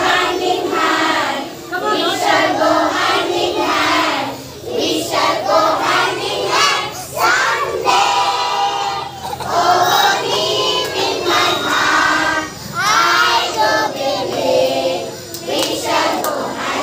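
A group of young children singing loudly together in phrases of a few seconds each.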